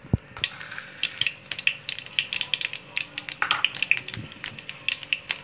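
Mustard seeds crackling and popping in hot oil in a frying pan: a fast, irregular run of sharp little clicks, with a dull knock right at the start as the seeds go in.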